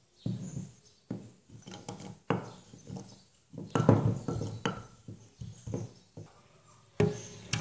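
Wooden pestle knocking and grinding cashew nuts in a wooden mortar, in a run of irregular thuds and scrapes. A sharp knock near the end.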